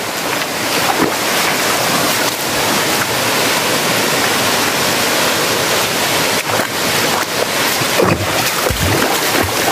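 A large waterfall pouring, a steady, loud rush of water.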